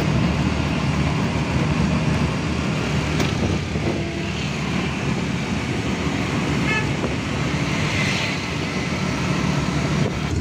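Auto-rickshaw engine running steadily under way, heard from inside the open cabin with road and traffic noise around it. A brief horn sounds in the traffic about two-thirds of the way through.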